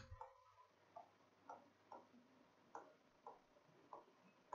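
Faint stylus ticks on an interactive smartboard screen. The pen taps the panel at uneven intervals as it touches down for each stroke of handwriting, about seven ticks in all.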